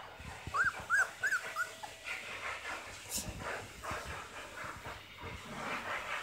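Goldendoodle puppy giving four short, high whimpers in quick succession about a second in, then rustling on the blanket as it shuffles about.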